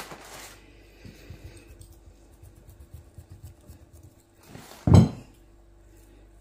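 Quiet handling noises from dough being pressed and trimmed in a glass baking dish, then one loud dull thump about five seconds in as the glass dish is shifted and turned on the table.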